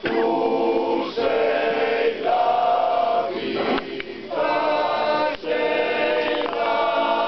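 A choir singing a slow hymn unaccompanied, several voices in harmony, in long held phrases with short breaks between them.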